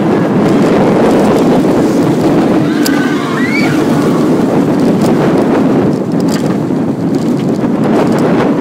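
Wind rushing over the microphone with the rumble of a Bolliger & Mabillard inverted steel roller coaster train running at speed through its twists, loud and steady, with scattered clicks and rattles from the track.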